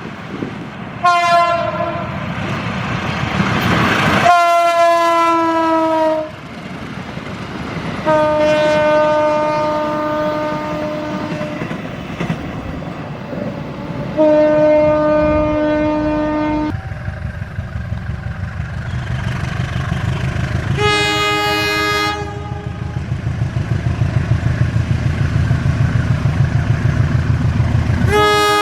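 S35 air horns of CC201 diesel-electric locomotives sounding in a string of separate blasts: a short toot, then several multi-note blasts of two to three seconds each, one sliding slightly down in pitch. In the second half a train passes with a loud low rumble and fast regular wheel clatter, cut by another short horn blast.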